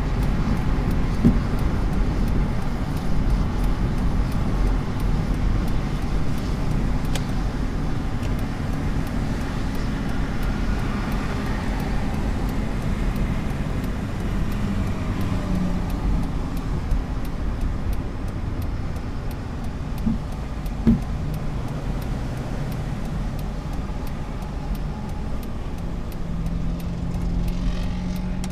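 Road noise inside a moving car: a steady rumble and hiss of tyres on wet pavement with a low engine hum, and a couple of brief knocks about twenty seconds in.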